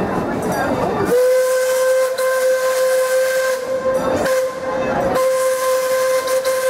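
Steam locomotive whistle blowing one long, steady single-pitched blast over a hiss of steam, starting about a second in, as the narrow-gauge steam engine pulls its train away.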